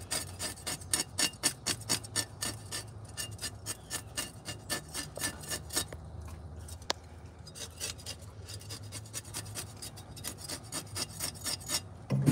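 Cleaver blade scraping the scales off a whole fish in quick rasping strokes, several a second, with a short lull about halfway through.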